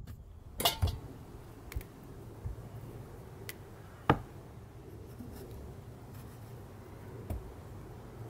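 Ripe tomatoes being handled and set down on a wooden cutting board and in a glass bowl: a few scattered soft knocks, the sharpest about four seconds in, over a low steady background rumble.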